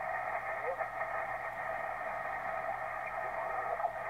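Yaesu FT-450D HF transceiver's receiver audio on the 80 m band in lower sideband: a steady hiss of band noise squeezed into the narrow sideband passband while the dial is tuned up the band, with faint warbling snatches of an off-tune signal.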